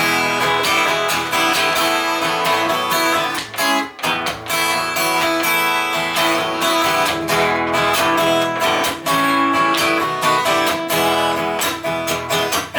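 Strummed acoustic guitar playing an instrumental break in a country-style song, with no singing.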